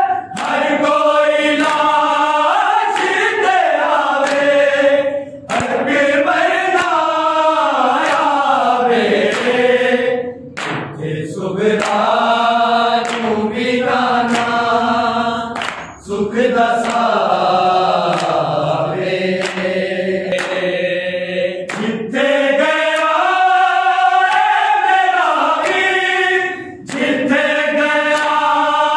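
A group of men singing a Punjabi noha, a Shia lament, in unison without instruments. The voices run in long sung phrases with short breaks between them.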